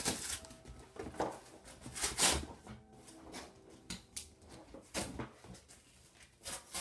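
A large cardboard shipping box being handled and pulled open: irregular scraping, rustling and knocks of cardboard, the loudest about two seconds in.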